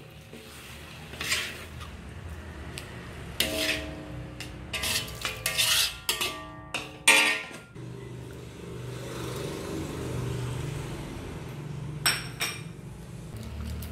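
Metal ladle clinking and scraping against a wok of simmering fish broth: a series of sharp, ringing metal clinks over the first seven seconds or so, then a softer steady sound, with one more clink about twelve seconds in.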